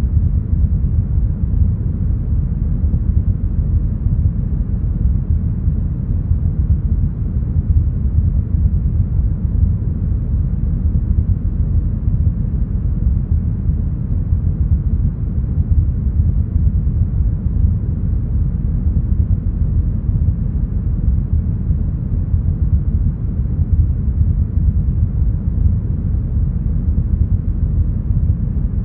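Deep, smoothed brown noise: a steady low rumble with almost nothing above the low-mids, unchanging throughout.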